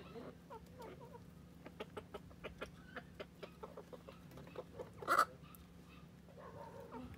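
A flock of silkie chickens clucking, with many short clucks. One louder, sharp burst comes about five seconds in.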